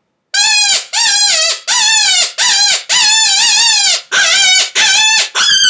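Mouth-blown predator call for coyotes, blown in a run of about eight loud, high-pitched whines, each under a second, wavering and dropping in pitch at the end of each. One of them, about three seconds in, is held longer.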